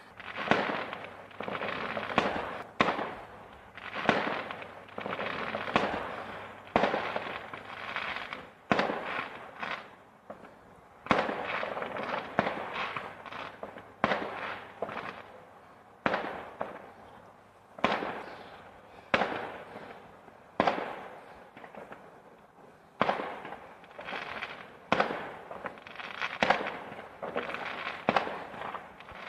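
Aerial fireworks going off one after another, about one every second or two. Each is a sharp bang followed by a crackling tail that fades away.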